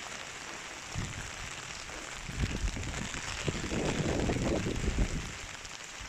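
Heavy rain falling steadily, with gusts of strong wind rumbling through it, briefly about a second in and most strongly from about two to five seconds in.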